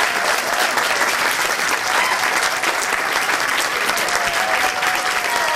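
Audience applauding steadily, a dense patter of many hands clapping, with a few faint voices in the crowd.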